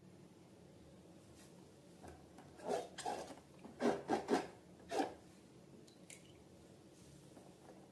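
Rubber balloons being handled: about six short rasping rubs, bunched together near the middle.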